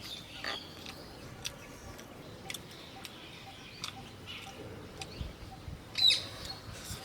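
Small birds chirping: scattered short, sharp chirps, with one louder call about six seconds in.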